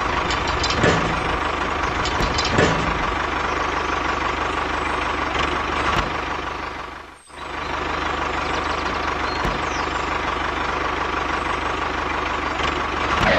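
A tractor engine running steadily, cutting out briefly about seven seconds in and then running again.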